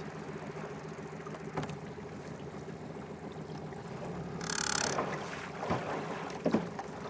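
Small outboard motor idling in gear for dead-slow trolling, a steady low hum. About two-thirds of the way in there is a brief hiss.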